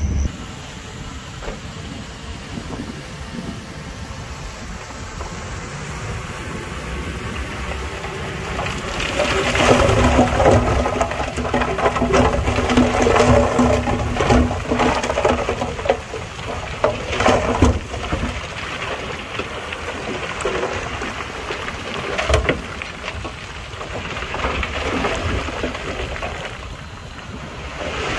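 Heavy earthmoving machinery working loose rock: a diesel engine running while rock rattles and grinds, louder and busier from about 9 to 18 seconds in.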